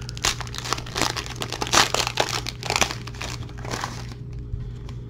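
Plastic foil wrapper of a trading-card pack being torn open by hand, a run of irregular crinkles and crackles, loudest just under two seconds in, dying away after about four seconds.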